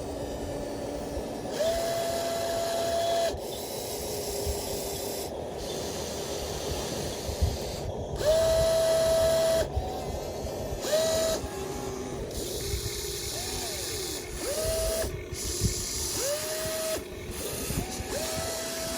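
Small electric motors of a radio-controlled toy excavator whining in short runs of one to two seconds, several times, each run rising quickly in pitch as the motor spins up and then holding steady, over a constant hiss.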